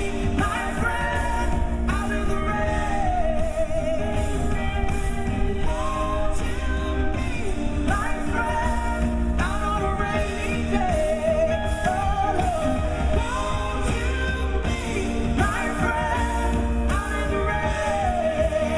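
Live band music: a woman singing held, bending notes over electric guitar and band backing.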